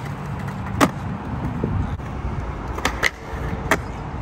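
A skateboard on concrete: a low rolling and grinding rumble from the wheels and board on the ledge, broken by a sharp clack of the board hitting the ground about a second in. Near the end, a few more quick clacks come over the wheels' rumble.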